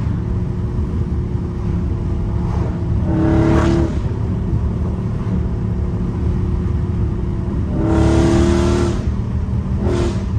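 Catless Dodge Charger Scat Pack's 392 HEMI V8 exhaust droning steadily inside the cabin at highway cruising speed, swelling louder briefly about three seconds in and again near eight seconds.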